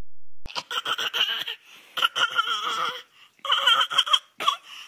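Fake coughing in about four short runs, each a string of pitched, voice-like coughs, with brief pauses between them.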